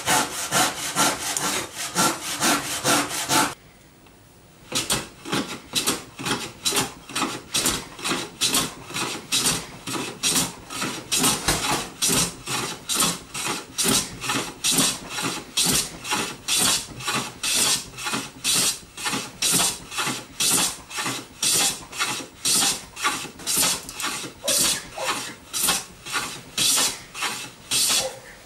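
Handsaw cutting across an eastern red cedar board in steady back-and-forth strokes, about two a second. After a short break about four seconds in, a long run of rhythmic hand-tool strokes on cedar follows at the same pace.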